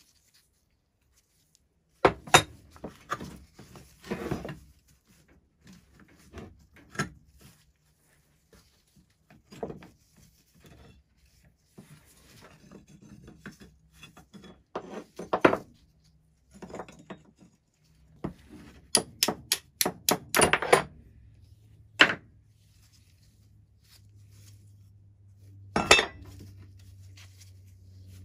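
Parts of an old rusty metal pulley block being taken apart and handled: metal clinks, knocks and scrapes as the axle pin, sheave and hook are worked loose and set down, with a quick run of clicks about two-thirds of the way through.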